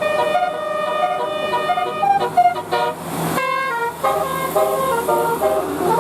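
Bus telolet horns, electric multi-trumpet horns, playing tunes: a held multi-note chord with notes changing under it, then after a short break a brisk run of short stepped notes.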